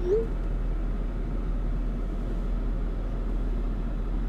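Steady low rumble of a car running, heard inside the cabin, with a short rising tone right at the start.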